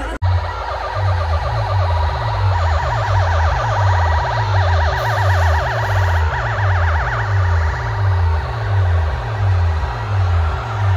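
Loud DJ sound-system music: a heavy bass beat pounding about twice a second under a fast, warbling siren-like effect.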